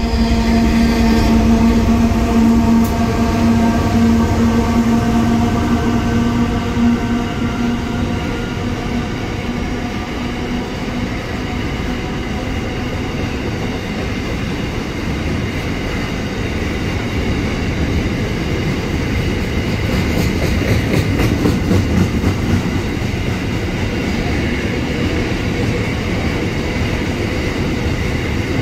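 Container freight train passing close by: the wagons' wheels and bogies rumble and rattle steadily, with a run of clacks about two thirds of the way through. A steady engine hum at the start fades away over the first several seconds as the locomotives draw off.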